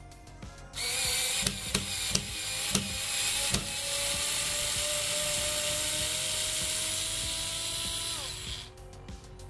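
TOPSHAK TS-ESD1 4 V cordless screwdriver running in reverse, backing a long wood screw out of a pine block. It starts about a second in with a few sharp clicks over the first seconds. The motor's whine then rises slightly in pitch as the screw comes out, and winds down near the end.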